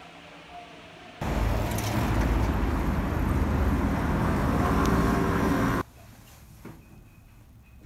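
Street traffic noise: a loud, steady rumble and hiss that starts abruptly about a second in and cuts off about four and a half seconds later, with quiet room tone before and after.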